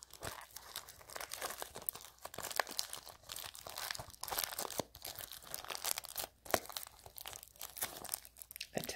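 Clear plastic shrink-wrap on a small cardboard blind box crinkling and crackling as fingernails pick and tear at it: an uneven run of small sharp crackles from wrapping that is hard to get into.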